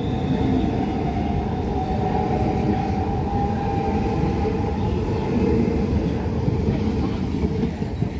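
Six-car Hitachi Class 395 'Javelin' electric multiple unit pulling away on third-rail power. Its wheels rumble steadily, with a steady whine from the traction equipment on top.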